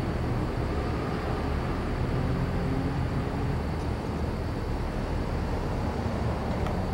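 Steady low rumble and hum of outdoor street background, with no distinct event except a faint click near the end.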